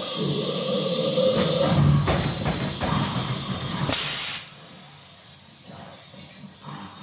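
Pneumatic zombie-crate prop running: air hissing from its pneumatics, mixed with growling from its soundtrack, ending in a short, loud burst of air about four seconds in, after which it drops much quieter.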